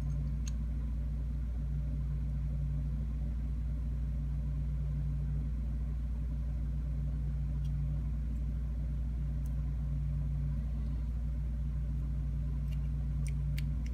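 Steady low electrical or machine hum, with a few faint small clicks of lock parts being handled, several of them near the end.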